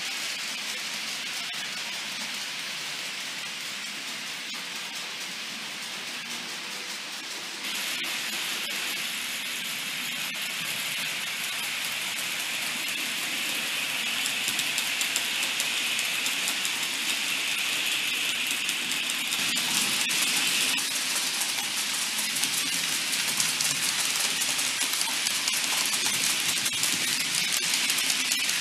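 Model freight train running on layout track: a steady rattling hiss of small metal wheels rolling over the rails. It steps up abruptly about eight seconds in and grows louder toward the end as the wagons pass close by.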